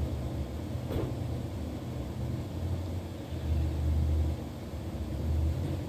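Low, uneven rumble that swells and fades every second or so over a faint steady hiss, with one faint click about a second in.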